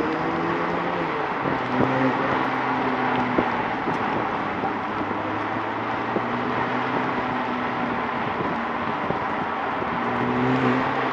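McLaren supercar's twin-turbo V8 running at low, steady revs as the car cruises, its note stepping in pitch a few times, over a constant rushing noise.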